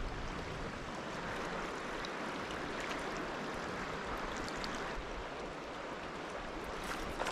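River flowing over a stony bed: a steady, even wash of water.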